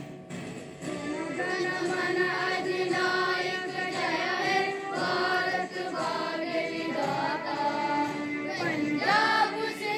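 A group of voices singing a song together in a choir style, growing louder about a second in.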